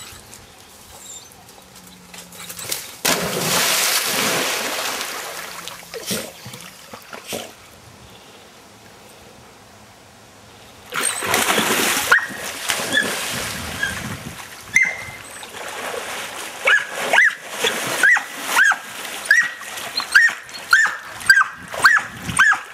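Dogs splashing into a river, one big splash about three seconds in and another about eleven seconds in, then the splashing of a dog swimming. Over the last several seconds a dog gives a steady run of short high barks, about two a second.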